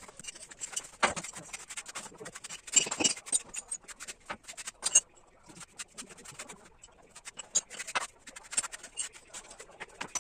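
Irregular scraping and knocking of objects being handled, with scattered sharp clicks and a few louder knocks.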